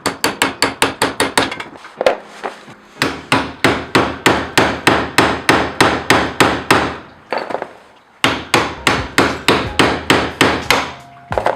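Hammer striking a steel tab washer in quick repeated blows, about five a second, in three runs with short pauses, knocking back the hammered-over locking tab on a BMW E30's tie rod at the steering rack so the tie rod can be turned off.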